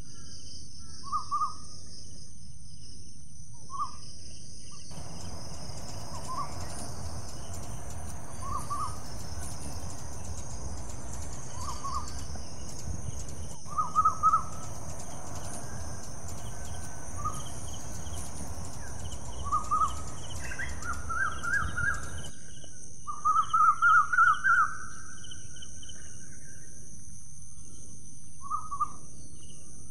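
Outdoor nature soundscape: short pitched bird calls repeat every second or two, with a louder cluster of calls about three-quarters of the way through, over a steady high-pitched insect drone. A low rumble runs through the middle stretch.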